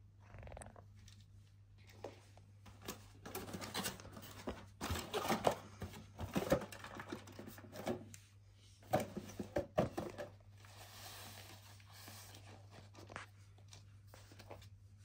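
Hands handling the packaging and accessories: irregular rustling, scratching and small clicks of cardboard, plastic and cable. The sounds are busiest in the middle and settle into a soft rustle near the end.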